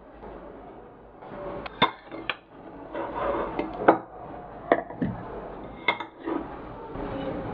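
Metal spoon clinking and scraping against a ceramic plate and the plastic bowl of a food chopper as canned tuna is scooped and dropped in: a string of sharp, irregular clinks.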